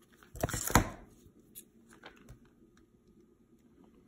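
A short burst of crinkling and rustling from a plastic-wrapped tofu package being squeezed and handled, sharpest near the end, followed by faint scattered taps and clicks.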